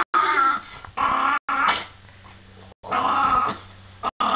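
Small dog vocalizing in several drawn-out, wavering growl-howls, broken by short pauses.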